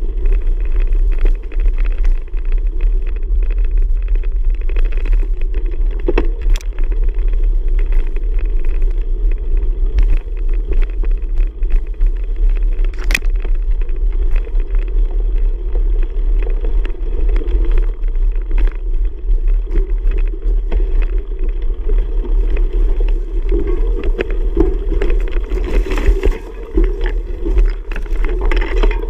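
Wind rumbling on the microphone of a camera carried on a moving bicycle, with scattered clicks and knocks from the bike rattling over the ground.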